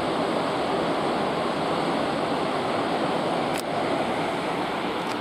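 Steady rushing of seawater churned up in a moving cruise ship's wake.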